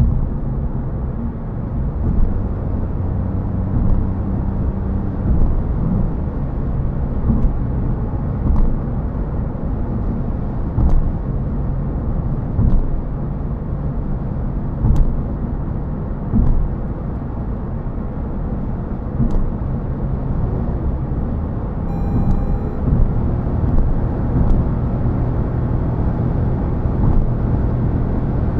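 Road and tyre noise inside a Toyota Yaris GR Sport cruising at about 70 mph on a dual carriageway: a steady low rumble and drone, with soft thumps every second or two. A short run of high electronic tones comes about three-quarters of the way through.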